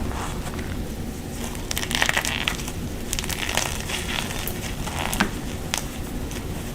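Blocks of gym chalk being crushed and squeezed, crunching and squeaking in irregular bursts, loudest about two seconds in.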